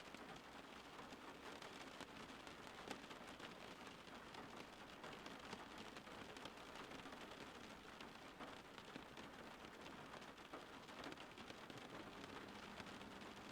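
Steady rain falling, faint: an even hiss of rain with many small drop ticks scattered through it.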